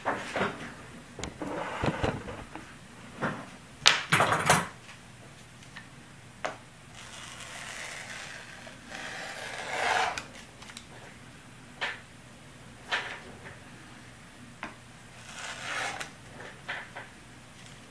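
Rotary cutter running through fiberglass cloth on an MDF board, with the paper pattern and tools being handled: a string of short scrapes and knocks, the loudest about four seconds in, and a longer scrape around eight to ten seconds in.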